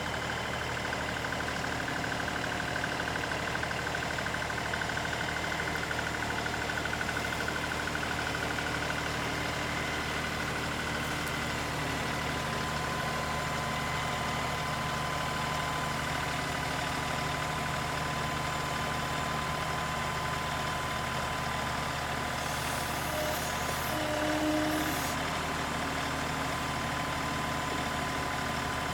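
LS XR3135 compact tractor engine running steadily while working the log pile with the front-end loader.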